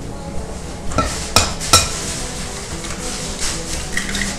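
Eggs being cracked by tapping them against the rim of a glass mixing bowl: three sharp knocks about a second in, then a light glassy clink near the end.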